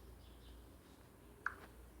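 Near silence with a faint low hum and a single short click about one and a half seconds in.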